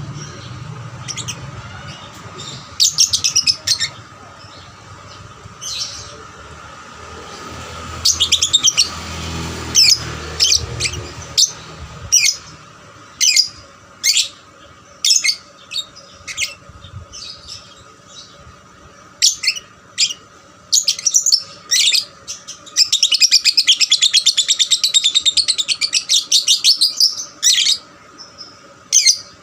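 Young lovebird chirping in short, high, repeated bursts, breaking into a longer run of rapid chatter about three-quarters of the way through.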